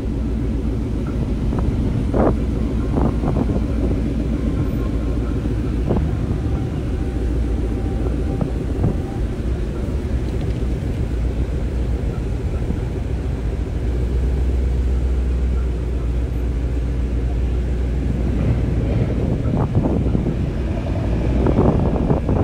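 Car engines running, a steady low rumble, with wind on the microphone and a few faint voices.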